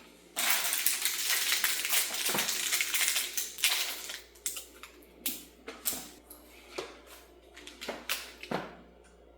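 Metal door hinge being handled and fitted into place on the door: about three seconds of continuous rattling and scraping with clinks, then scattered single metallic clicks and taps.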